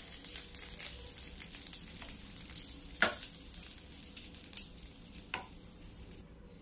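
Hot tempering oil with dried red chillies and curry leaves sizzling in curd, the hiss slowly dying away. A steel spoon clinks against the ceramic bowl as it is stirred, sharply about three seconds in and again about five seconds in.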